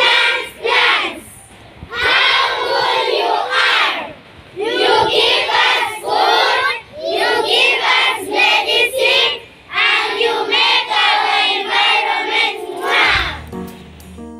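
A group of children's voices calling out together in unison, in several phrases separated by short pauses.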